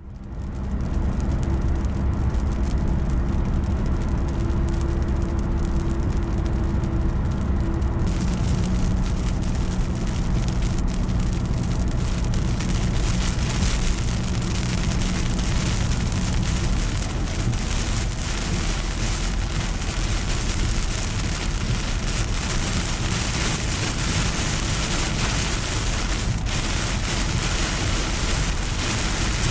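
Heavy rain falling steadily, with a low steady hum under it. The rain grows fuller and hissier about eight seconds in, and the hum fades out a little past halfway.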